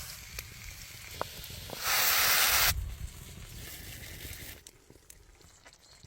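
Oysters sizzling over an open fire, a steady hiss with light crackles, and a loud burst of hiss lasting just under a second about two seconds in. The sound drops away near the end.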